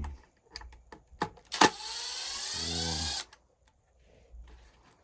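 Small cordless power drill/driver running in one steady whine for about a second and a half, starting after a few light clicks and stopping abruptly.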